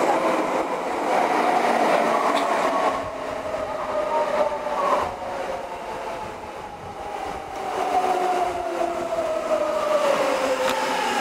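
Onboard running sound of a Kintetsu 1020 series electric train: the inverter and traction motors whine in several tones over the rumble of wheels on the rails. The whine's pitch falls slowly in the second half.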